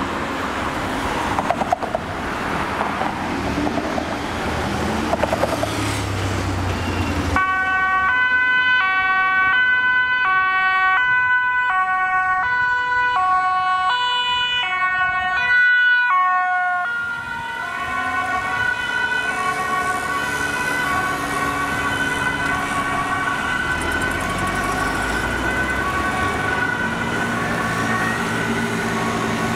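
Ambulance two-tone siren, stepping back and forth between a high and a low note, each held about half a second, over engine and traffic noise. It comes in loud about seven seconds in and turns fainter and blurred after about seventeen seconds as the ambulance moves away.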